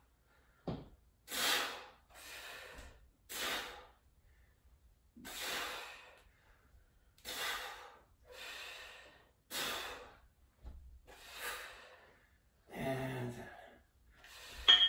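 Deliberate, audible breathing paced with dumbbell floor presses: a breath in and a breath out about every second, alternating louder and softer. Near the end comes a voiced, groaning exhale and then a short sharp click.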